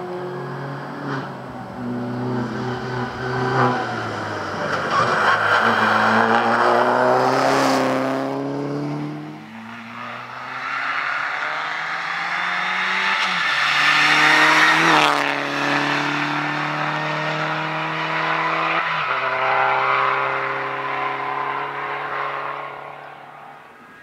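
Opel Corsa OPC rally car revving hard as it accelerates between corners and passes. The engine note climbs, then drops sharply at each gear change and falls away as the driver lifts off for a corner. There is a loud rush of noise each time the car goes by close.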